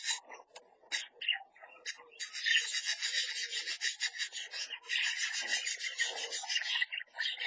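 Budgerigars chattering and warbling: a few short chirps, then a dense run of quick, choppy chatter from about two seconds in.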